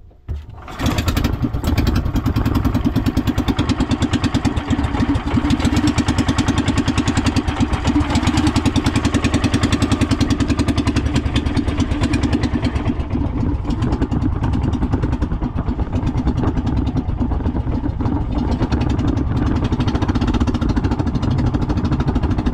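Small outrigger-boat (bangka) engine starting and catching almost at once, then running steadily with a fast, even firing beat, a little quieter in the second half. It is being run to test a propeller that has just been hammered back into shape.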